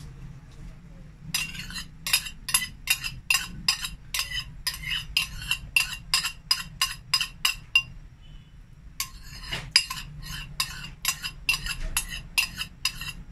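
Metal spoon clinking and scraping against a ceramic bowl in quick strokes, about three or four a second, working thick first-press coconut milk (kakang gata) out of the bowl into the pot. The strokes stop for about a second around the middle, then start again.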